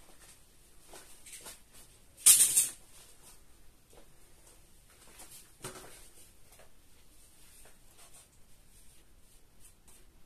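Handling noise at the work: a short, loud rattling scrape about two seconds in, a single sharp knock near six seconds, and faint scattered clicks and rustles between.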